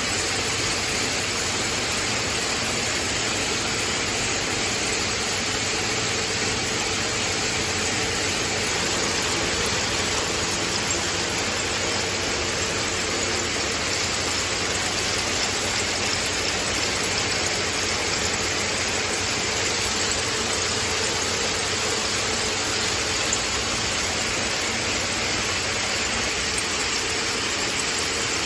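Many shoelace braiding machines running at once, a steady, dense mechanical noise with no pauses.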